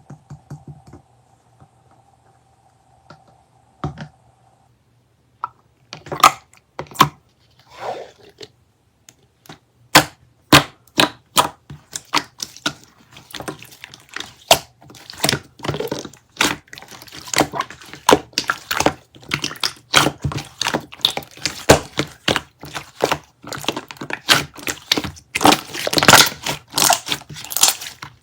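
A run of sharp taps and crunchy crackles, a few scattered at first, then several a second from about ten seconds in and loudest near the end. A faint steady tone runs for the first few seconds.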